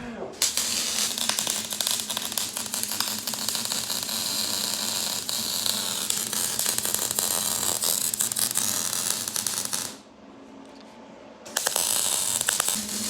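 Arc welding: the arc crackling and sizzling steadily for about ten seconds, breaking off, then striking again for a shorter run near the end, with a faint steady hum in the gap.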